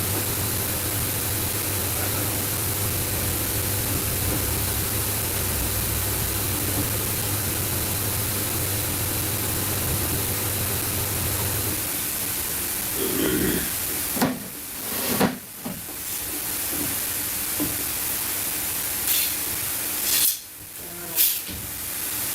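Steady hiss, with a low hum underneath that stops about halfway through; the hiss briefly drops away twice near the end.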